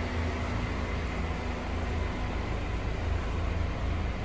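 Holden Commodore ZB's 2.0-litre turbo petrol four-cylinder engine idling steadily, a constant low hum.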